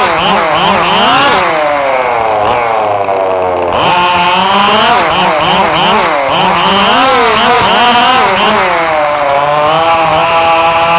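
Radio-controlled cars' motors buzzing and revving up and down as they run around a track, several pitches overlapping and rising and falling every second or so, with one long drop and climb in pitch a few seconds in.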